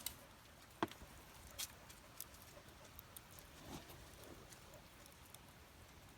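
Faint, scattered crackles and ticks from a small cooking fire, irregular and a second or so apart, the sharpest about a second in, over a quiet background.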